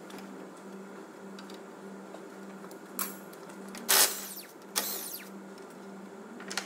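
Milwaukee cordless impact wrench undoing the 18 mm caliper carrier bolts on a Ford Ranger front brake, in short bursts of rapid hammering. The loudest burst comes about four seconds in, with another just under a second later.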